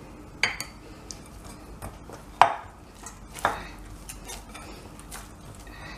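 Glass mixing bowl knocking and clinking on a stone counter as pizza dough is kneaded by hand inside it: three louder knocks with a short ring among softer taps.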